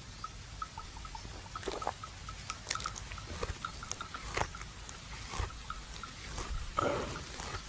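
Buffalo chewing its cud: irregular crunching chews, the loudest near the end.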